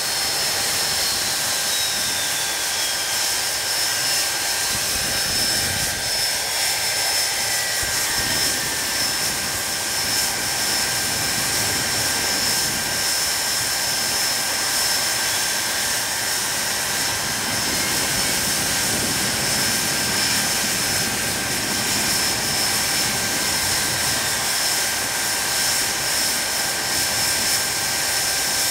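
Rolls-Royce Spey turbofan engines of a Hawker Siddeley Nimrod running steadily on the ground: a loud jet rush with high, steady whining tones. A fainter whine glides downward over the first eight seconds or so.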